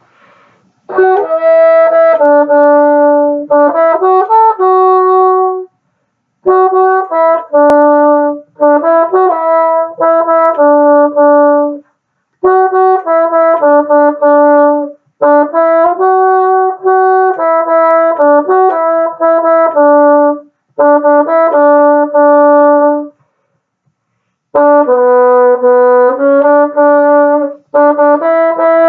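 Solo bassoon playing a melody, starting about a second in, in phrases of several notes separated by short pauses, with a longer pause about two-thirds of the way through.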